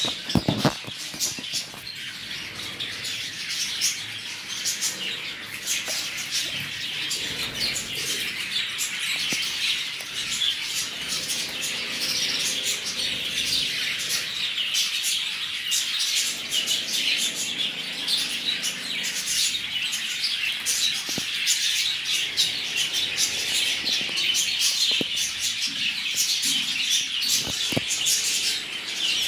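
A flock of Java finches (Java sparrows) chirping continuously, a dense chorus of short, high calls, with bursts of wing flapping. A sudden thump about half a second in.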